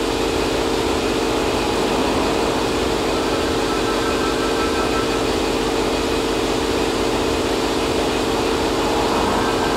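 A steady, unchanging mechanical hum, like an engine running, at an even level.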